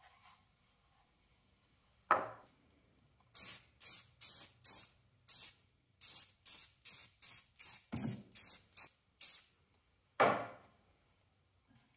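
Aerosol spray can of primer sprayed in about fifteen quick hissing bursts, two or three a second. A loud knock comes just before the spraying starts and another just after it ends.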